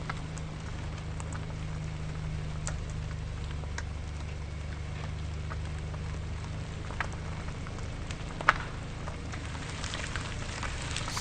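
Car tyres rolling slowly over gravel: a steady crackle of crunching stones over a low rumble. A sharper stone pop stands out about eight and a half seconds in.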